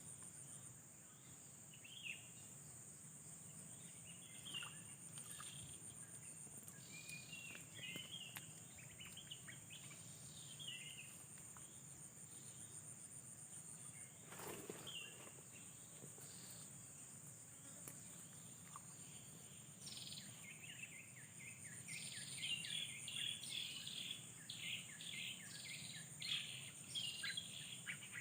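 Steady high-pitched insect drone with birds chirping over it, the chirps thickening into a busy run of short calls in the last third.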